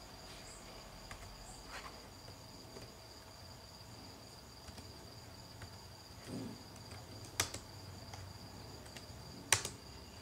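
A steady, faint high-pitched tone in the background, like an insect's trill, with two sharp clicks: one about seven seconds in and one about two seconds later.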